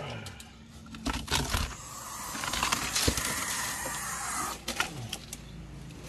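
Young barn owl hissing defensively in an attack posture: a loud, long hiss starting about two seconds in and lasting around two and a half seconds, with a few sharp clicks before and after it.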